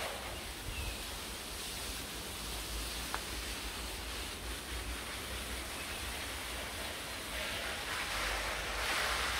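Steady outdoor garden ambience: an even hiss over a low, unsteady rumble. The hiss grows louder for a couple of seconds near the end as plants are rustled and handled.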